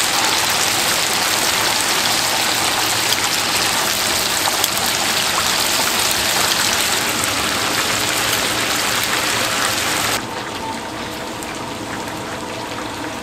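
Battered chicken pieces deep-frying in a cast-iron cauldron of hot oil: a steady, loud sizzle. About ten seconds in it suddenly turns quieter and duller.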